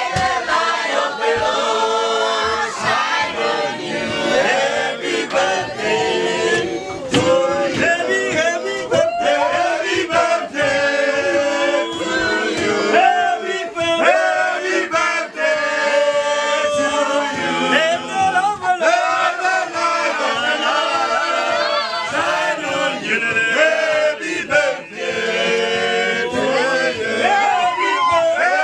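A group of voices singing together, held notes wavering up and down, with no speech.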